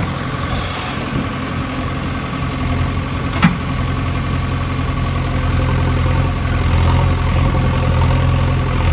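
An engine idling steadily with an even, unchanging hum. A single sharp click sounds a few seconds in.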